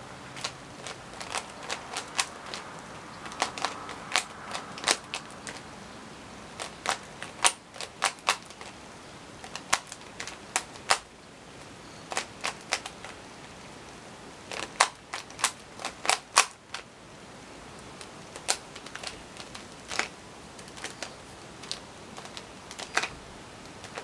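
Plastic Rubik's 3x3 cube, lubricated with Vaseline, clicking and clacking as its layers are turned by hand during a solve. The sharp clicks come in irregular quick runs with short pauses between them.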